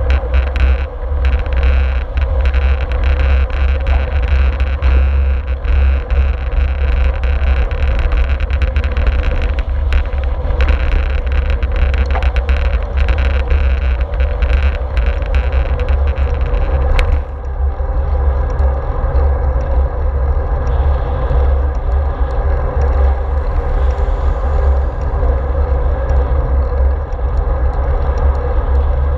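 Wind rushing over a bicycle-mounted action camera's microphone together with the tyres rolling on asphalt, as a road bike rides at speed. A steady roar with many small rattling clicks that stop after a brief dip about two-thirds through.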